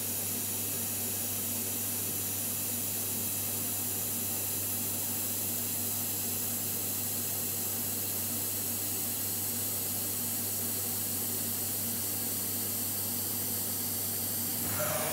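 Steady, unchanging hiss with a low hum from the workshop's machinery around the CNC router, while the router slowly lowers its tool onto the tool-length sensor during automatic calibration.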